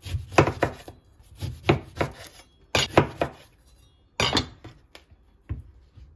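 Stainless chef's knife cutting through an orange and knocking on a bamboo cutting board: a run of sharp knocks, mostly in pairs, with short pauses between them.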